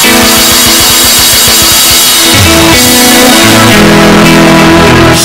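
Loud band music with guitar and drums.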